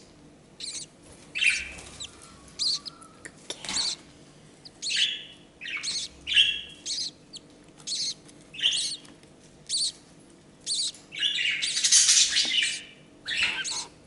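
Budgerigars chirping in short, high calls about every half second, breaking into a longer run of chatter about eleven seconds in.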